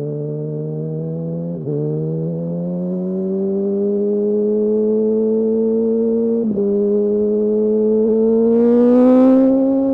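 2008 Yamaha R1's inline-four engine pulling hard under acceleration, its pitch climbing steadily. It is interrupted briefly by two gear changes, about 1.7 s and 6.5 s in, and a rush of hiss comes in near the top of the rev range near the end.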